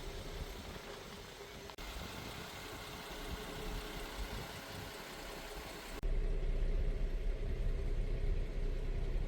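A vehicle engine idling steadily, becoming louder and deeper about six seconds in.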